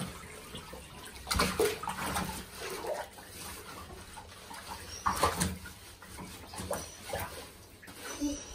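Water splashing and sloshing in a bathtub as a wet Alaskan malamute is scrubbed and moves his legs, in several separate splashes, the biggest about five seconds in. Short whines from the dog come in between.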